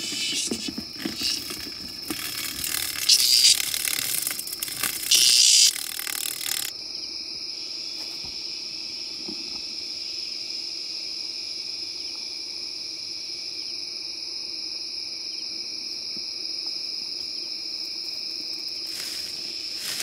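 Night insect chorus: a steady, high-pitched chirring trill that runs without a break. For the first six seconds a louder, rough rasping noise lies over it, with two strong bursts, and then stops abruptly.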